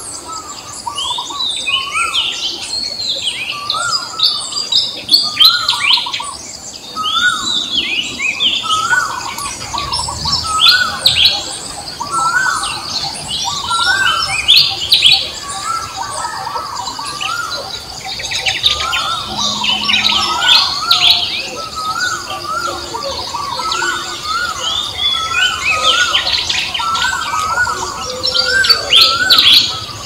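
Birds chirping and calling in a busy chorus, short arched chirps repeating again and again, over a steady high-pitched drone.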